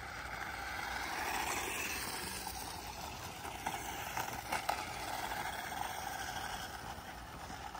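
Adventure Force Baja Brute toy RC car's small electric motor running and its tyres rolling over concrete as it drives and turns. The sound swells about a second in, with a few sharp clicks near the middle.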